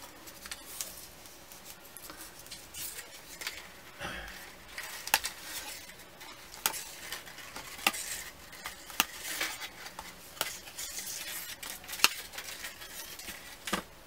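Hands handling card stock and a roll of adhesive tape on a craft mat: scattered light clicks and taps with short paper rustles.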